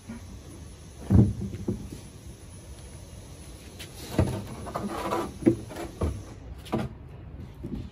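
Wooden raised-bed box knocking and scraping on concrete as it is tipped over and set down on its side: one sharp knock about a second in, then a run of knocks and scrapes a few seconds later.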